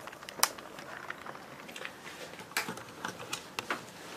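A few faint, scattered clicks and light knocks over a quiet room hiss: handling noise of a handheld camera as it moves.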